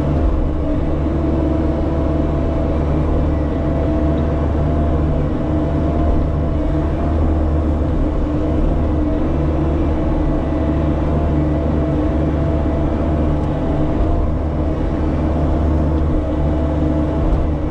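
Bobcat E50 mini excavator's diesel engine running steadily under load while the bucket digs, with a steady high hydraulic whine over the engine drone.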